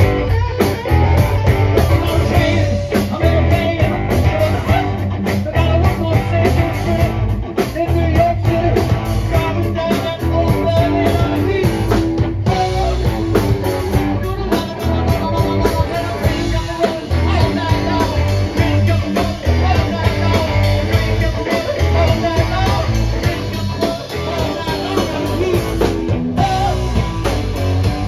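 Live rock band playing: electric guitars driving a riff over a pounding drum kit, with a singer's voice.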